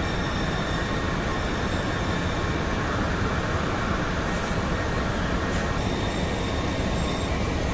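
Steady low rumble and noise of a moving vehicle, with a few faint, steady high-pitched whines.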